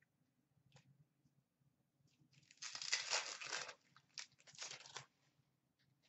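A hockey card pack's wrapper being torn open: a crinkly tearing of about a second, starting about two and a half seconds in, then a shorter second crinkle.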